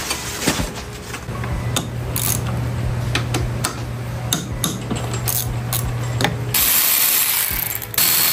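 Hand tools working on a motorcycle: a run of sharp ratchet-like clicks and metal clinks over a low steady hum. About six and a half seconds in, the clicks give way to a steady rushing noise.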